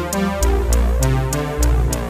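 Electronic background music with synthesizer notes, a deep bass line and a steady beat of crisp percussion.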